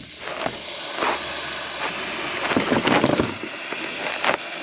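Pressurised water hissing steadily from a rat-chewed PEX supply pipe leaking inside a wall cavity, with a few knocks and scrapes over it.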